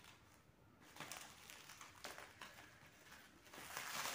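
Plastic wrapping on a parcel being torn and pulled apart by hand, crinkling in irregular bursts that get louder toward the end.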